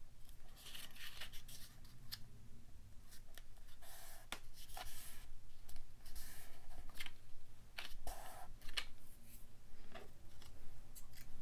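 Paper being handled on a cutting mat: rustling and rubbing as strips of patterned paper are folded and pressed into place, in a few short bursts, with some light clicks and taps.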